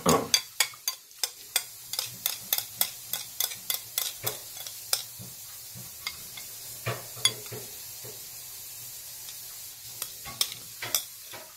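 Close-up eating sounds of jjajang ramen: wet chewing and mouth-smack clicks, and metal chopsticks mixing the noodles in the black bean sauce on the plate. A quick run of sharp clicks fills the first half, then they come more sparsely.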